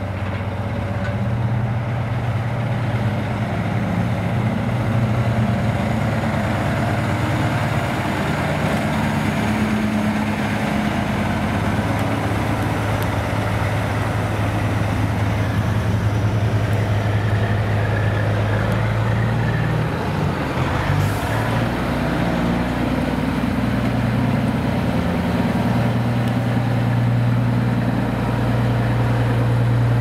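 Diesel semi-truck engines running at low speed, a steady low drone as tractor units without trailers roll slowly past.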